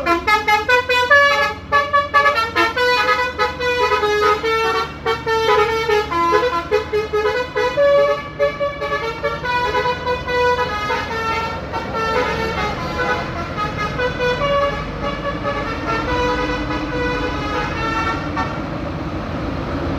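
A bus's basuri musical horn playing a fast melody of short notes, several notes a second, over the low rumble of the bus.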